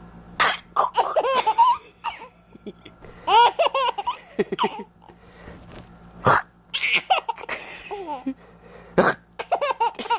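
A four-month-old baby laughing in about four bouts of high squealing laughs, each broken by sharp catches of breath.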